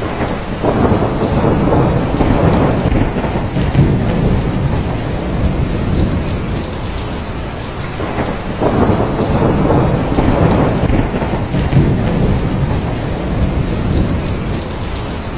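Thunderstorm: steady rain with long, low rolls of thunder. The thunder swells twice, about a second in and again just past the middle.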